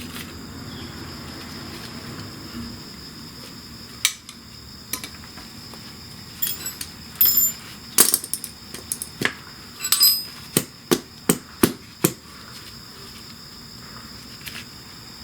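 Sharp metal clicks and knocks of hand tools working on a motorcycle's gear-shift linkage. A few are scattered at first, then comes a quick run of about six even taps in under two seconds.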